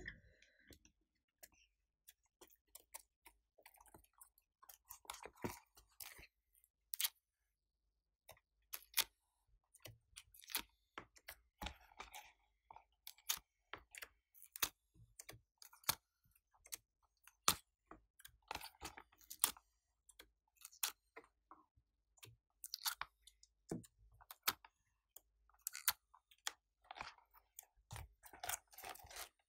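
Hands pressing small set pieces out of a flexible silicone mold and dropping them onto white slime: a run of irregular sticky clicks and crackles.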